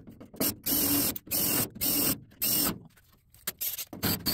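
DeWalt 20V cordless drill running in short trigger bursts, about five in the first three seconds and two more near the end, drilling out the factory spot welds in the steel cab door post of a 1953 Chevy truck.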